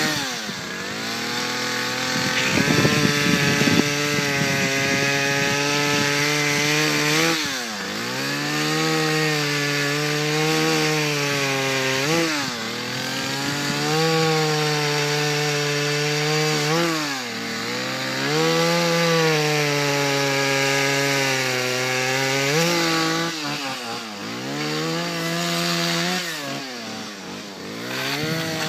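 Two-stroke chainsaw running at high revs while cutting dead ash wood. Its engine note dips and climbs back several times.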